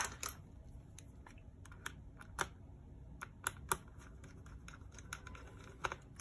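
Small screwdriver working the screws of a MacBook Pro's hard drive bracket: light, irregular clicks and taps of metal on metal, with a few sharper clicks in the middle.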